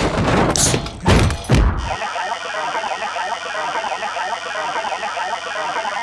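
Cartoon sound effects: a quick run of loud crashes and thuds in the first two seconds, then a steady, dense clattering texture.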